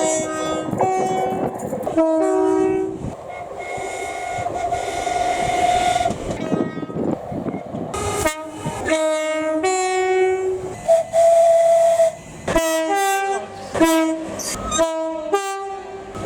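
UK train horn sounded in a long run of short blasts, switching between low and high notes like a tune, with a few longer held notes, as the train passes with its rumble and wheel clatter.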